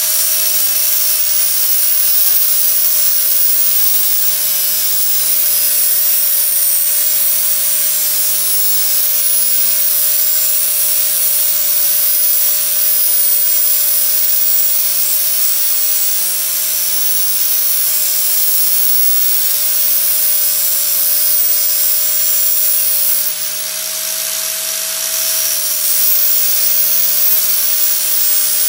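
Angle grinder with a flap sanding disc running steadily with a constant whine, grinding down the edge of a painted metal motorcycle chain guard with a harsh sanding hiss. About 23 seconds in the sound eases and the whine rises slightly as the disc comes off the metal.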